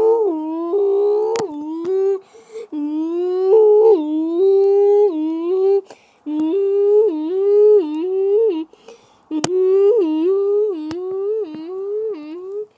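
A person humming an imitation of an Emergency Alert System alarm: a wavering two-note tone that steps up and down about twice a second, broken by three short pauses for breath.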